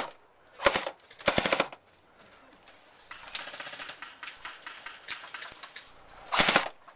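Airsoft guns firing rapid full-auto bursts of quick clicking shots. Three loud close bursts come about a second in, shortly after, and near the end, with fainter, more distant bursts of fire in between.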